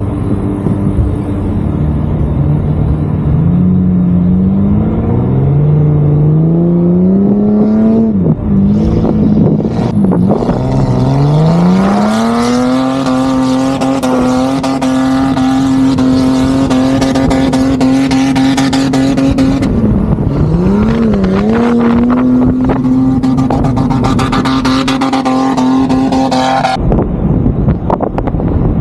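A 4x4 engine revving hard under acceleration, its pitch climbing in steps through the gears several times, then held at high revs for long stretches with brief dips, under a rushing noise. It cuts off abruptly near the end.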